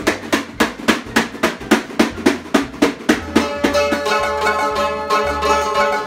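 A tambourine struck in a steady beat, about four hits a second. About three seconds in it gives way to a mandolin playing held notes with fast tremolo picking.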